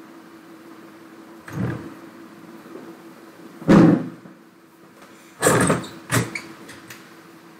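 Four dull knocks or bumps, the second the loudest, over a steady hiss and a faint low hum.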